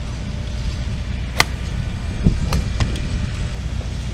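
Steady low rumble with several sharp clicks, the loudest about a second and a half in: golf balls being struck by clubs elsewhere on the driving range.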